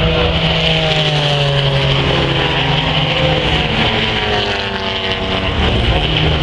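Classic racing car engines running hard around the circuit, heard from trackside, their notes sliding down in pitch several times as cars pass or ease off.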